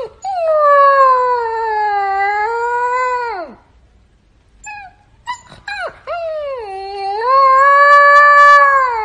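Husky puppy howling: a long wavering howl that falls away after about three and a half seconds, a few short yips, then a second long howl that rises and holds before trailing off near the end.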